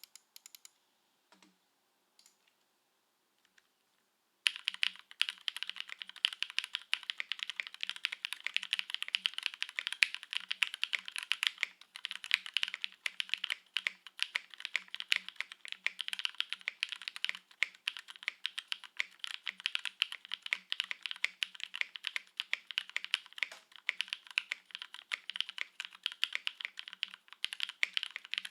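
Typing on a Matrix Vita custom mechanical keyboard with linear switches (Cherry MX Black housings, lubed NK Cream stems), a foamless aluminium plate and GMK keycaps. A few separate key clicks come first, then fast continuous typing starts about four seconds in.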